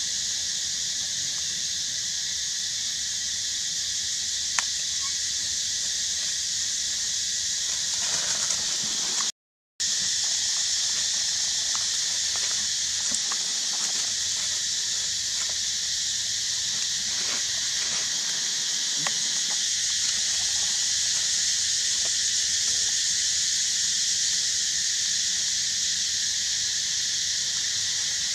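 Steady high-pitched drone of an outdoor insect chorus, unchanging throughout, with a brief half-second dropout about a third of the way in and a few faint clicks.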